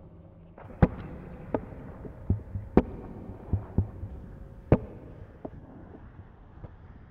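Wind and water rushing over an action camera while kitesurfing on choppy sea, broken by about eight sharp knocks and thumps at uneven intervals during the first six seconds.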